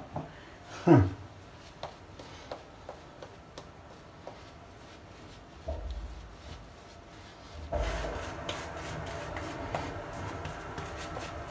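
Horse hair shaving brush working lather on a stubbly face: a steady rustle from about eight seconds in. Before that come a short knock about a second in and scattered light clicks.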